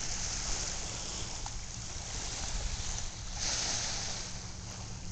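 Wind and water noise at a rocky saltwater shore, with wind rumbling on the microphone and a low steady hum beneath.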